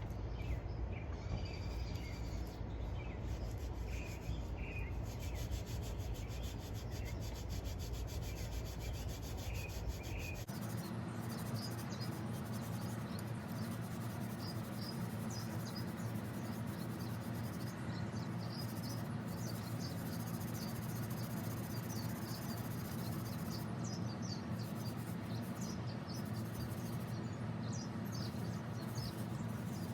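A cloth rag rubbing Brasso polish over a cast-metal coin bank in steady strokes, with birds chirping in the background. The low background hum changes about ten seconds in.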